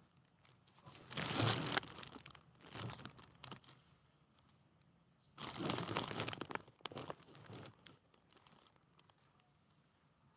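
Rustling and crinkling in two main bursts, one about a second in and a longer one around five and a half seconds in, with a short scrape between them.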